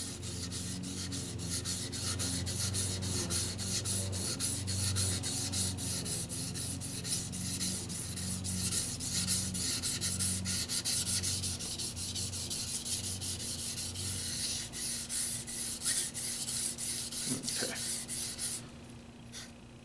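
Tojiro Shirogami (white steel No. 2) petty knife blade scraped back and forth flat on a wet Shapton Pro whetstone in a steady run of quick rasping strokes, thinning the grind behind the edge. The strokes stop near the end.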